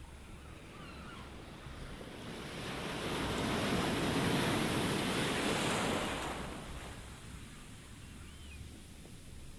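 Ocean wave swelling in, rising over a couple of seconds, peaking about halfway through, then washing back and fading. Faint short chirps can be heard before and after it.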